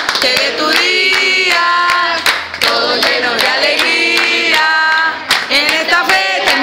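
A group of people singing a birthday song together while clapping along.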